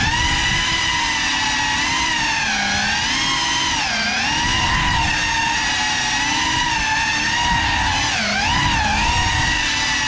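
Motors and ducted propellers of a Cinelog 35 cinewhoop FPV drone on a 6S battery, a high whine whose pitch rises and falls with the throttle, dipping briefly about 4 s and again about 8 s in.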